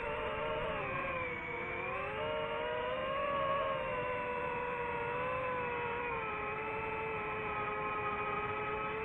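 DJI FPV drone's motors and propellers whining steadily in flight, several tones together, the pitch dipping about a second and a half in and rising again as the throttle changes.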